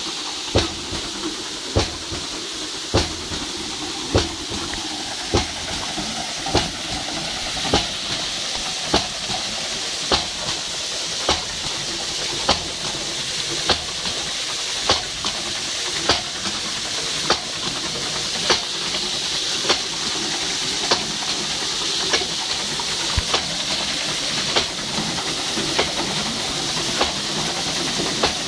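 Small water wheel driven by a jet of water from a pipe: a steady rush and spatter of spraying water, with a sharp knock repeating evenly about every 1.2 seconds and fainter clicks between.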